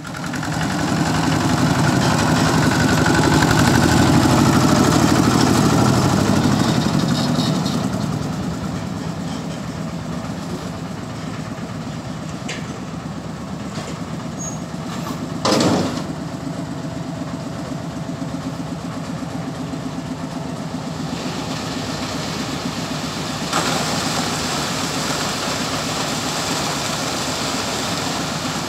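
Concrete mixer truck's diesel engine running steadily, louder for the first several seconds, while it discharges concrete down its chute into a small dumper. There is one sharp knock about halfway through, and a brighter hiss joins about three-quarters of the way in.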